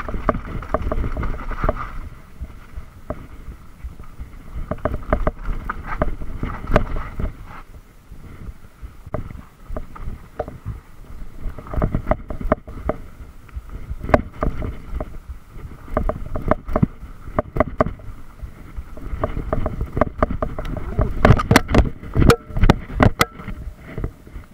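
Mountain bike riding down a rough dirt trail, heard from a camera on the bike or rider: irregular clattering and knocking of the bike over roots and bumps over a low rumble of tyres and wind. The heaviest run of knocks comes near the end.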